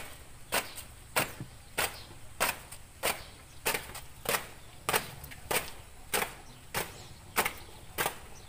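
A marching squad's shoes striking concrete in unison: a sharp, regular step about every two-thirds of a second, some of them slightly doubled where the feet don't land together.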